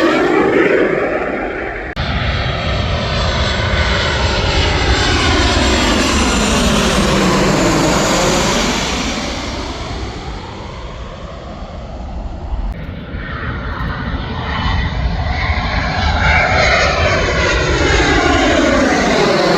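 Fixed-wing aircraft engine sound passing over, with a sweeping, phasing whoosh. It fades somewhat around the middle and swells again toward the end.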